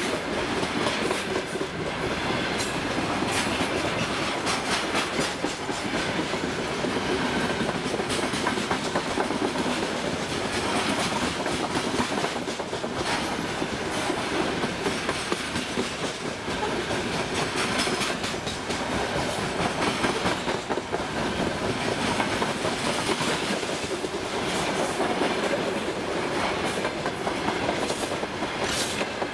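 Freight train of hopper wagons rolling past close by: a steady rumble of wheels on rail with clusters of clickety-clack as the wagons' wheelsets cross the rail joints.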